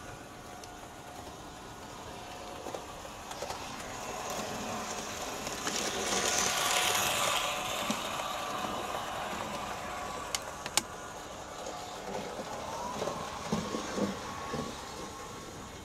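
Märklin H0 model locomotive (ÖBB class 1118, Märklin 3369), fitted with a high-performance motor and ball bearings, running alone on Märklin M-track. Its motor and wheels on the metal rails make a steady running noise that swells and fades about six to eight seconds in as it passes. Two sharp clicks follow a little past ten seconds, and a few soft knocks come near the end.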